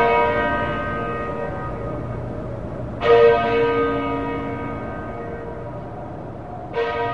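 Dark ambient music: a deep bell tolling slowly, struck about three seconds in and again near the end, each stroke ringing out and fading, over a low steady drone. The stroke from just before is still ringing as it begins.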